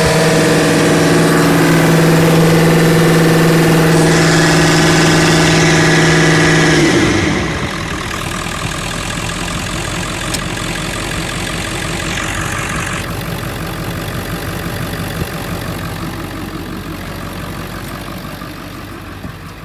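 Ford 7.3-litre Power Stroke V8 turbo-diesel running with a steady, tonal note. About seven seconds in, the note falls in pitch and the engine settles to a quieter, steady idle. The seller describes it as running great with no blow-by.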